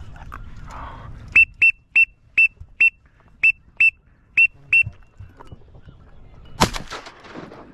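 A duck whistle call blown in nine short, sharp, high toots, followed about two seconds later by a single shotgun blast.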